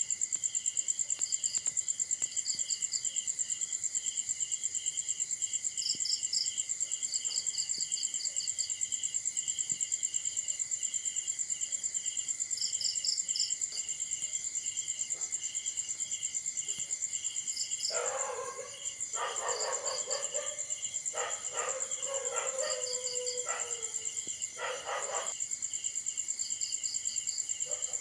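Night chorus of crickets and other insects: a steady high trill with a pulsed chirping beneath it. About two-thirds of the way in, a series of louder, lower calls repeats several times over some seven seconds, some ending in a falling tail.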